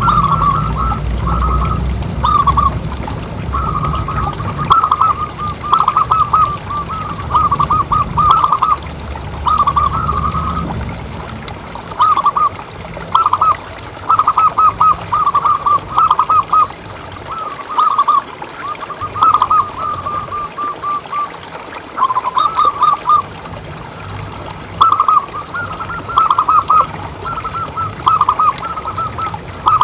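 Zebra dove (perkutut) cooing: phrase after phrase of quick, staccato coo notes, each phrase lasting a second or two with short pauses between. A low rumble sits under the calls for the first ten seconds or so.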